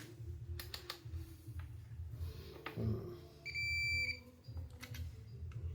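A digital multimeter beeps once, a steady high electronic tone of under a second, about three and a half seconds in, as it is set to diode mode. Faint clicks of handling the meter and probes come before it.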